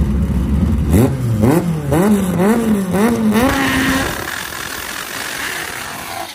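K-series four-cylinder engine of an AWD Honda Civic drag car idling, then revving up and down about twice a second at the starting line. Near the middle it holds steady revs, and the car launches and pulls away down the strip.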